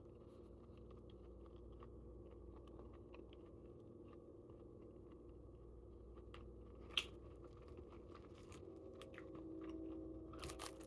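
Faint chewing and small mouth noises of someone eating roast chicken and flatbread, over a low steady room hum. There is one sharper click about seven seconds in and a few louder clicks near the end.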